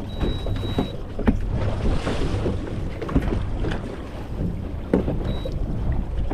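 Wind buffeting the microphone over water lapping against a boat hull, with scattered knocks. A short, thin, high tone sounds twice, the second time briefly near the end.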